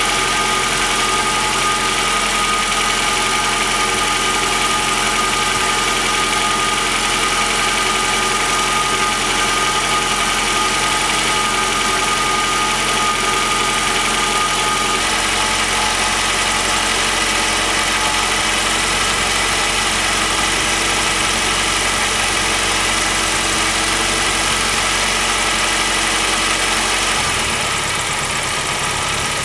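1990 Saab 900S four-cylinder engine idling steadily. Its tone shifts abruptly about halfway through and again near the end.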